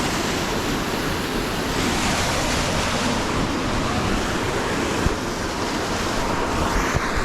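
Waterfall rushing: a steady, even noise of falling water, with a couple of small knocks near the end.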